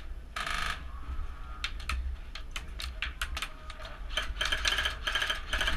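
Airsoft guns firing: short bursts of rapid sharp clicks, a brief burst about half a second in and a longer run of bursts in the last second and a half.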